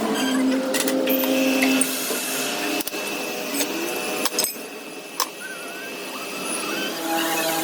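A workshop machine running with a steady whine, with a few sharp clicks and knocks about halfway through.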